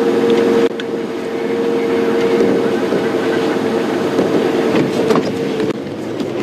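Safari game-drive vehicle's engine running with a steady hum, its level dropping a little about a second in and again near the end.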